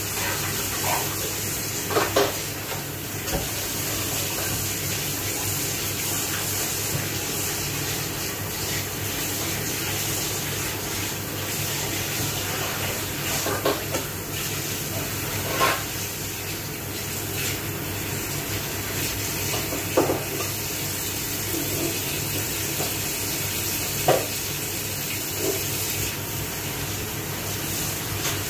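Washing up at a kitchen sink: a steady rush of water with occasional clinks of dishes and utensils, a few seconds apart.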